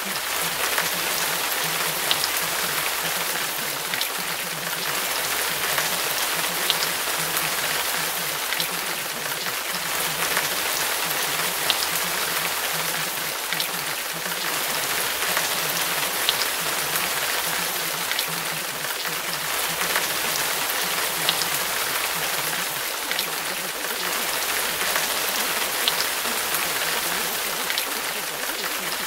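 Recorded rainfall, a steady patter with scattered sharper drop ticks, used as the masking track of a subliminal audio.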